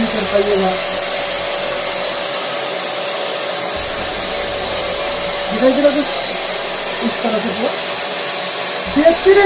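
Electric paint sprayer (Paint Zoom type) running steadily: its handheld turbine blower unit gives a constant rush of air with a steady whine, driving the spray gun.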